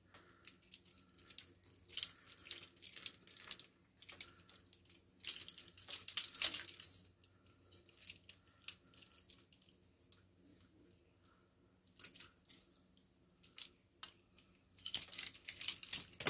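Metal handcuffs clinking and jangling against each other on a wrist as they are worked open and taken off, in irregular bursts of sharp metallic clicks with a lull of a few seconds about two-thirds of the way through.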